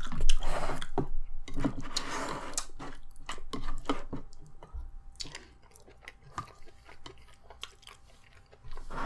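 Close-up chewing of food, with some crunching and a few sharp clicks, loudest in the first few seconds and fainter after.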